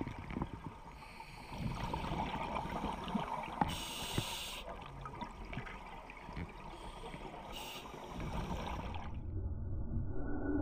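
Underwater sound of a scuba dive through the camera housing: a diver's regulator breathing and bursts of exhaust bubbles over steady water rumble, with bubble bursts about four and about eight seconds in. Around nine seconds in the sound turns duller and muffled, with a low steady hum.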